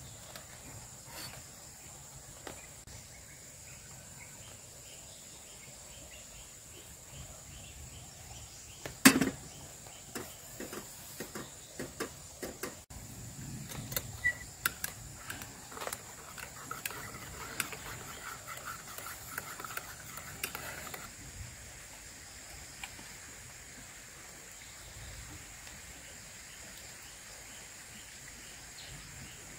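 A wooden stirrer swirls and scrapes in a ceramic mug of coffee, with a run of light taps, stopping suddenly about twenty-one seconds in. The loudest sound is a single sharp knock about nine seconds in. A steady high insect drone runs underneath.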